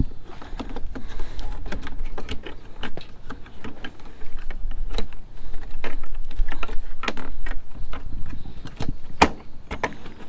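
Irregular clicks, taps and rustling of hands working an LED halo headlight assembly and its plastic housing parts into place, with a sharp click about nine seconds in as the loudest.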